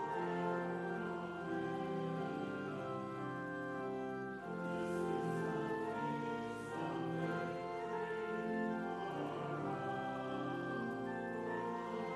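A church congregation singing a hymn to organ accompaniment, in slow held notes, with a short break between phrases about four seconds in.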